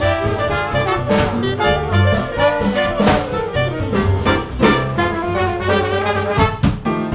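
Background jazz music led by brass, with a steady beat.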